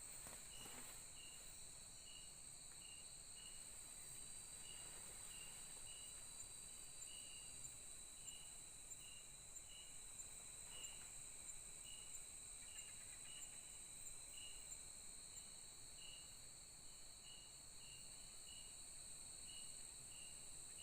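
Faint night-time forest insects: a steady high-pitched drone with a cricket chirping at an even pace, somewhat under twice a second.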